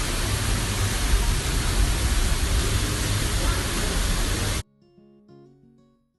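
Steady, loud rushing noise that cuts off suddenly about four and a half seconds in. Faint, soft music follows and fades away.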